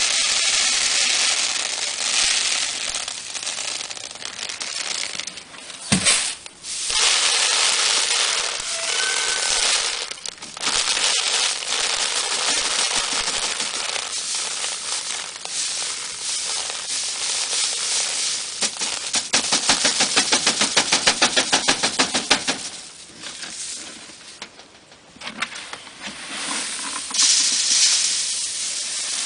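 Threshed wheat being shaken in a hand sieve, a rustling hiss of grain and chaff moving over the screen, stopping and starting several times. About two-thirds of the way through comes a run of quick, even shaking strokes.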